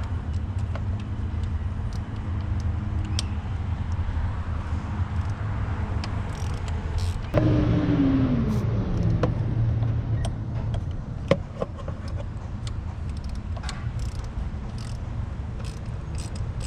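Steady low hum of workshop background with scattered sharp clicks of hand tools at work on the engine. About seven seconds in a louder whir starts, its pitch falling steadily over about two seconds.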